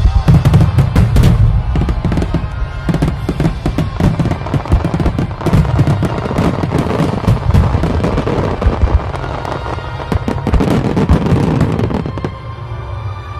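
Fireworks going off in a dense barrage of rapid bangs and crackles, easing off near the end, with music underneath.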